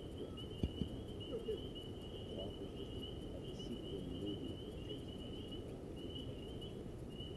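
Insects chirping in a steady, high-pitched pulsing trill over low outdoor background noise and faint distant voices, with a couple of soft clicks a little under a second in.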